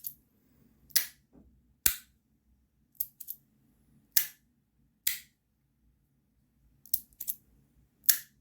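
Magnetic fidget slider (Modusworks Rapt V2 with brass 2x3 strong inserts) being slid back and forth, its magnets snapping into place with sharp, thick clicks about once a second. Some clicks come in quick pairs.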